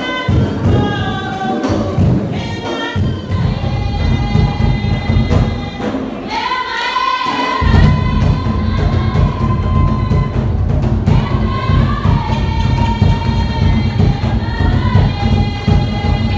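Polynesian dance music: group singing over steady drumming. About six seconds in, the drums drop out for a second and a half while the voices hold a long high note.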